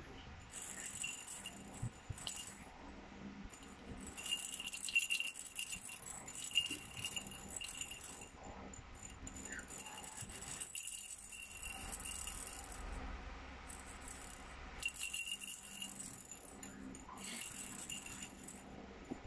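Plastic lattice-ball rattle toy shaken in a baby's grip, rattling in irregular bursts with a few seconds' pause near the middle.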